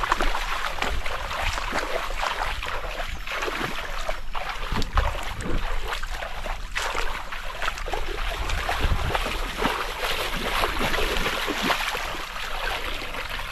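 Shallow muddy water splashing and sloshing, irregular and continuous, as a hand net is swept and dragged through a flooded paddy channel by someone wading in it.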